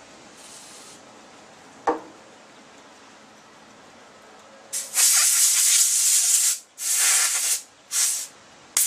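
Hissing spray bursts forced through a plugged carburetor main jet to clear it: one long burst, then several shorter ones. A single sharp click comes about two seconds in.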